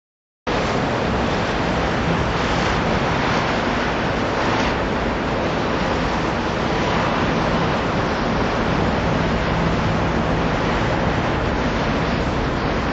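Steady rushing noise of wind on the microphone, starting suddenly about half a second in, with a faint low hum beneath it.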